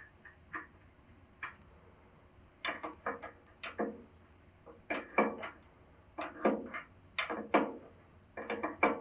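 Wrench tightening the locking nuts on a lathe's leveling feet: short clusters of sharp mechanical clicks, repeating about once a second from a couple of seconds in.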